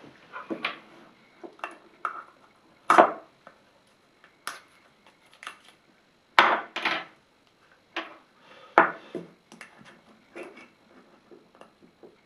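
Hands working at a sealed pipe-tobacco tin and setting a pipe down on a wooden tabletop: irregular clicks, knocks and short scrapes, the loudest knocks about three seconds in, about six and a half seconds in and near nine seconds.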